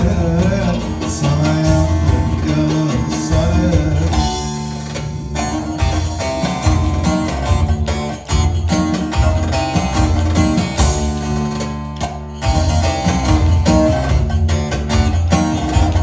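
Live Turkish folk dance music from a bağlama (saz) and band over a steady beat, with the sharp rhythmic clacking of a pair of wooden spoons played by a dancer.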